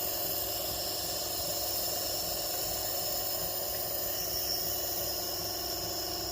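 Nebulizer running: a steady hiss with a constant hum under it.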